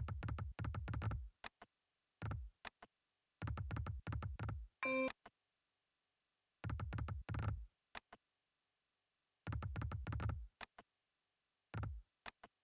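Sound effects of the EGT Flaming Hot Extreme video slot game: clusters about a second long of rapid, low, ticking thuds as the reels spin and stop, repeating with each spin and separated by silent gaps. A short, bright chime about five seconds in marks a small win.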